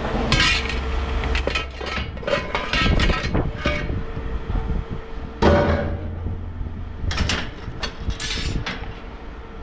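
Pieces of scrap metal clanking and knocking as they are handled and tossed while being sorted. It is an irregular string of knocks, with the loudest about five and a half seconds in.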